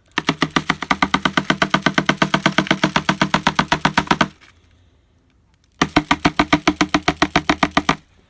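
A small motor buzzing in rapid, even pulses, about ten a second, in two runs: one of about four seconds, then after a short pause one of about two seconds.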